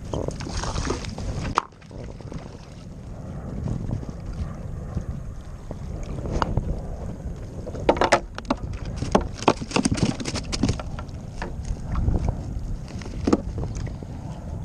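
Wind buffeting the action-camera microphone over water sounds around a paddleboard. A cluster of sharp knocks and rattles about eight to eleven seconds in comes as a caught porgy is swung into an open plastic cooler.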